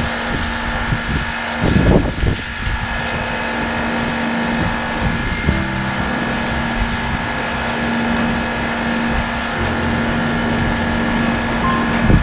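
Pressure washer running steadily: a constant motor hum under the hiss of the water jet blasting dirt off a concrete slab, with a brief louder surge about two seconds in and again near the end.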